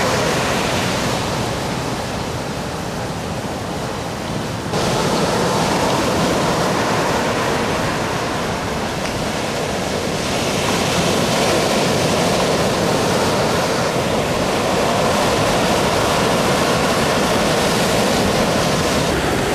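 Heavy ocean surf breaking and rushing, a steady wash of white-water noise. The level jumps abruptly about five seconds in.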